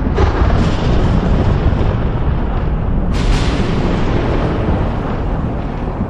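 Deep, continuous rumble with two heavy blasts, one right at the start and another about three seconds in, each fading back into the rumble: an explosion- or eruption-type boom sound effect.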